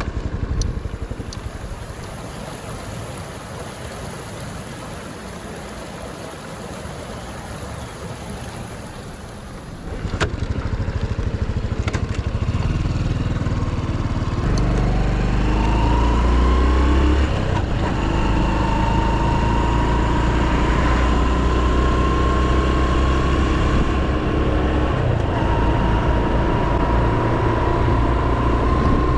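Honda Super Cub 110's single-cylinder engine pulling away and accelerating, its pitch climbing and dropping back twice at gear changes, after about ten seconds of quieter steady noise.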